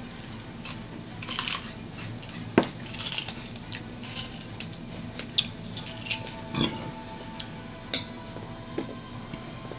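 Raw celery stalks being bitten and chewed up close: a string of short, crisp crunches scattered through.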